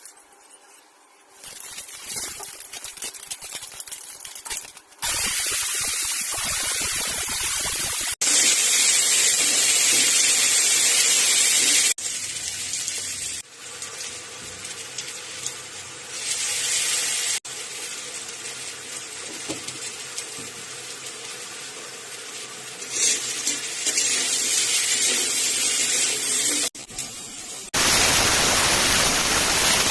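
Kitchen cooking sounds in a series of short clips, each a steady hiss that cuts off abruptly at the next edit; the loudest stretches come about eight seconds in and near the end.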